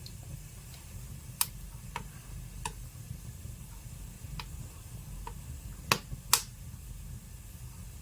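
Wood fire in a fireplace crackling: scattered sharp pops over a low steady rumble, the two loudest pops close together about six seconds in.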